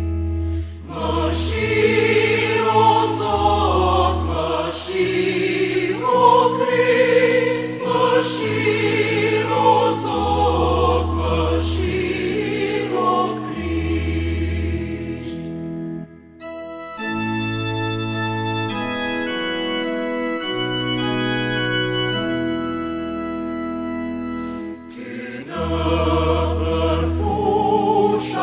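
Devotional song: singing over a sustained organ accompaniment with held bass notes. Past the middle the voice drops out for about nine seconds of organ alone, and the singing returns near the end.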